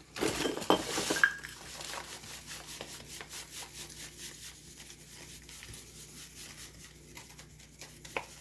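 A spoon measuring powdered sweetener out of its package into a measuring cup. A rustle of the packet comes first, then a long run of light scrapes and clinks at about three a second.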